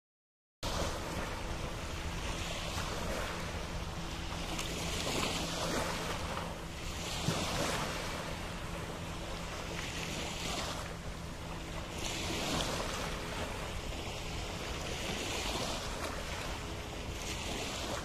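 Small waves lapping on a sandy shore, a soft wash swelling up every two to three seconds, over a steady rumble of wind on the microphone and a faint low hum.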